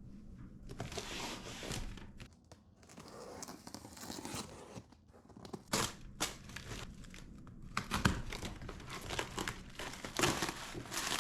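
A cardboard box being opened by hand: tape and cardboard tearing and packaging rustling and crinkling, with a few sharp snaps.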